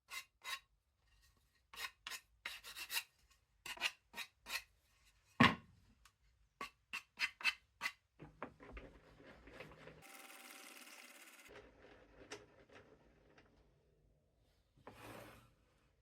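Wood being scraped and rubbed by hand: a dozen or so short, sharp strokes over the first eight seconds, then a softer steady rustling hiss, and one more stroke near the end.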